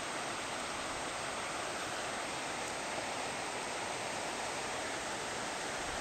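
Steady rushing of stream water flowing over gravel, an even hiss with no splashes.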